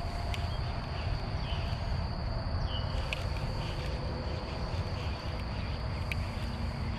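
Steady chorus of insects such as crickets, one constant high-pitched drone, over a low rumble, with a few faint short chirps and a sharp click about three seconds in and another about six seconds in.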